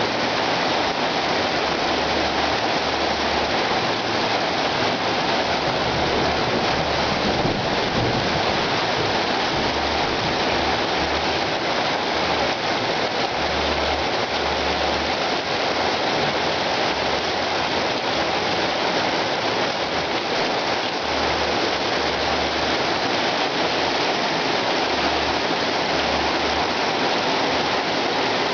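Rain falling steadily, an even hiss of drops that does not let up.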